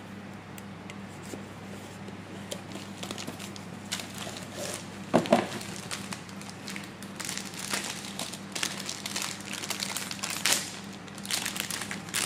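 Irregular crinkling and crackling, with a louder crunch about five seconds in, over a steady low hum.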